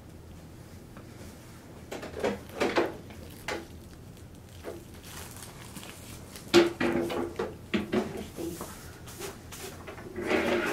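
Scattered clicks, knocks and rustling of hands handling an IV line and its plastic fittings at a bedside, with one louder knock about two-thirds of the way in.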